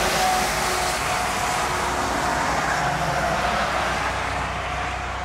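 Jet engines of an Airbus A330-200 on final approach: a steady rushing noise with a thin high whine over a low rumble. The hiss thins a little near the end.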